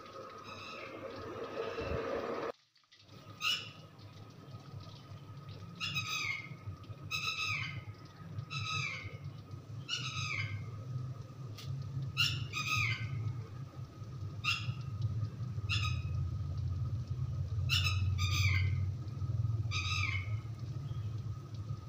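A bird calling over and over, each call a short falling squawk, roughly one a second, over a low steady hum.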